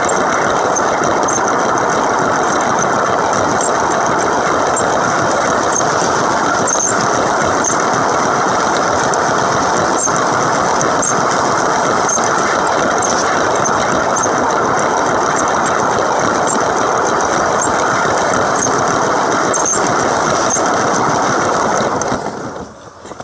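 Lego BNSF diesel locomotive running along its track close by: a steady motor whir and wheel rumble with faint ticks about once a second. It drops away sharply near the end.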